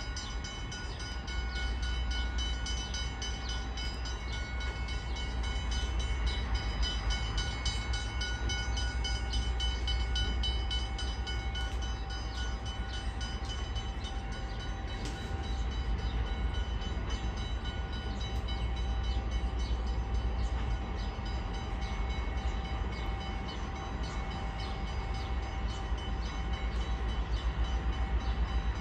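Diesel train rumbling steadily, with several high steady whining tones over it; two of the tones stop about halfway through.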